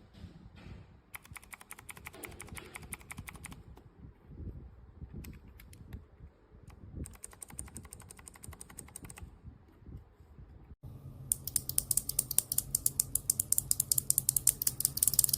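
Typing on Kailh BOX Thick Click clicky switches: runs of rapid, sharp clicks from the switches' click bars. A louder, brighter run starts about eleven seconds in, over a low steady hum.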